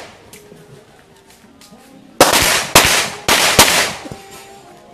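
Pistol shots in a practical shooting stage: after a short lull, about four shots in quick succession, each with a short echo off the range.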